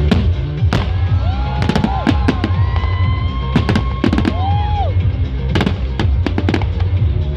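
Fireworks going off in a string of sharp bangs and crackles, heaviest in the middle and again near the end, over loud music with a heavy bass beat.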